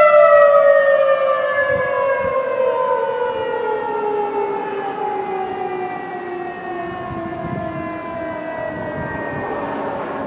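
Federal Signal 2001-SRN outdoor warning siren winding down, its pitch falling steadily and its sound fading as the rotor coasts to a stop after the siren is switched off.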